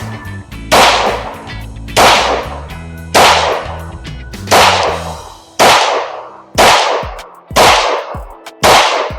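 Glock 19C 9mm pistol with a factory-compensated, ported barrel fired at a steady pace: about eight shots roughly a second apart, each with a short fading tail. Background music runs underneath.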